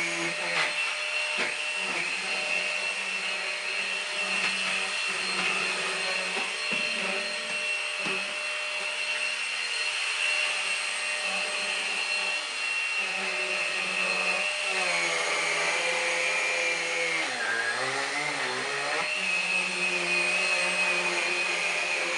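Numatic Henry Quick cordless vacuum cleaner running on a sofa, a steady high motor whine with a few brief knocks early on as the head moves over the cushions. About two-thirds through, the whine sags lower in pitch for a few seconds, then comes back up.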